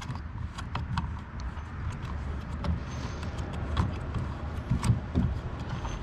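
Scattered light clicks and knocks of a trolling motor's plastic transom clamp bracket and clamp-screw knobs being handled and fastened onto a bow-mount bracket, over a low steady rumble.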